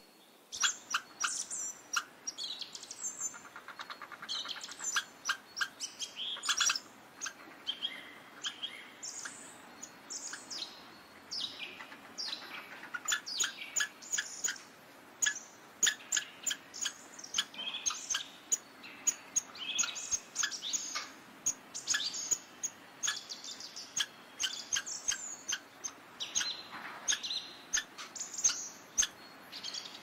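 Squirrel calling: a long, irregular series of short, sharp, high chirps and chatters, several a second, with a quick rattling trill a few seconds in.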